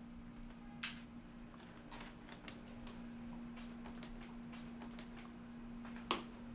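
Quiet room tone with a steady low hum, broken by two sharp clicks, one about a second in and one near the end, and a scatter of fainter ticks between them.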